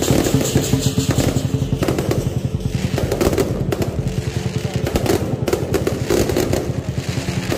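Lion dance percussion band: war drums beating a fast, even roll under ringing gongs, with sharp cymbal crashes now and then.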